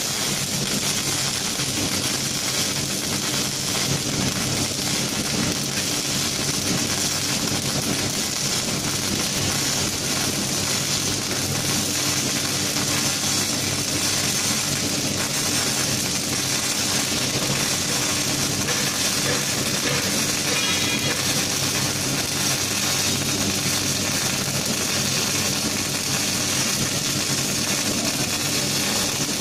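Robotic arc welding on a steel forklift mast: the welding arc sizzles steadily and without a break, over a low, steady hum of machinery.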